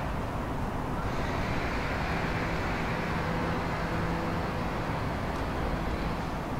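Steady outdoor traffic rumble. A vehicle's engine hum and tyre noise swell and fade in the middle, as if it is passing by.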